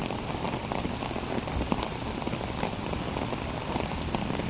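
Steady rain falling, a dense patter of many small drop hits close to the microphone.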